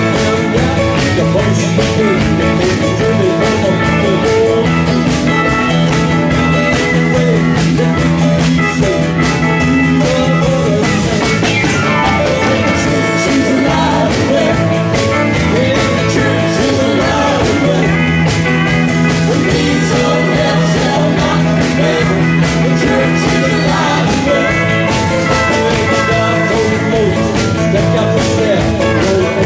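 A gospel band playing live: electric guitars and a drum kit, with a woman singing into a microphone.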